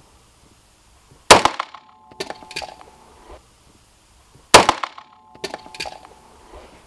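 Two pistol shots about three seconds apart in an indoor range, each followed by a few light metallic clinks and a short metallic ring. The rounds strike a P.A.K. blank-firing pistol hanging from a rope and knock it down.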